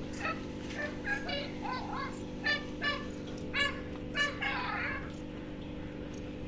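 Birds calling in a series of short, pitched calls, roughly one or two a second, over a steady low hum.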